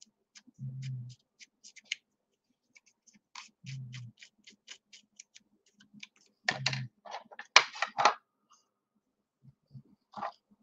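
Irregular run of light clicks and taps from handling paper-craft pieces and foam adhesive dots at the work surface, busiest about two-thirds of the way in. Three short, low hums are heard along with it.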